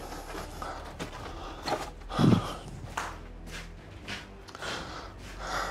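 Footsteps and scuffs on a debris-strewn floor, with scattered small knocks and one louder dull thump a little over two seconds in.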